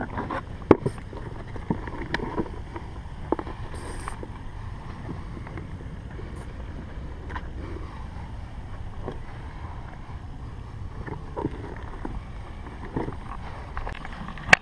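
Clicks and knocks from a black plastic rodent bait station being handled and opened by gloved hands, over a low wind rumble on the microphone. The sharpest knocks come about a second in and again near the end.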